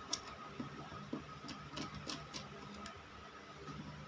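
Light, irregular clicks and taps as small plastic-cased electrical parts (a relay, a charge controller, circuit breakers) are handled and set down on a plywood board, over a faint steady hum.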